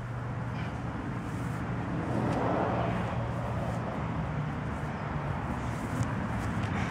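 Steady low outdoor rumble, growing louder about two seconds in.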